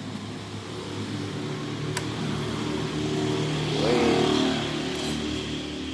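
Suzuki Raider 150 motorcycle running through a gutted ('kalkal') stock muffler, idling steadily, with one short blip of the throttle about four seconds in where the revs rise and fall back. A single sharp click about two seconds in.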